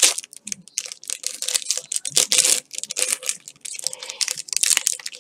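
Foil wrapper of a Yu-Gi-Oh! Mega Pack booster being torn open and crinkled by hand: a quick, uneven run of crackling rustles and tears.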